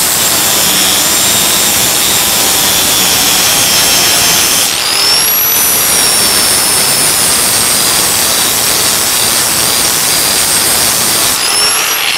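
Angle grinder with a flap disc grinding down a MIG butt-weld bead on steel sheet metal: a high motor whine over the rasp of the disc. The whine rises in pitch about five seconds in, and again near the end as the disc comes off the metal.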